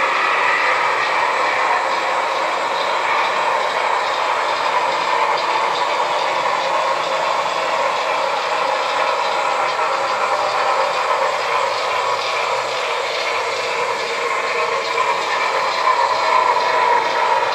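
HO-scale model freight train running along the layout track: a steady rolling clatter of its wheels and mechanism.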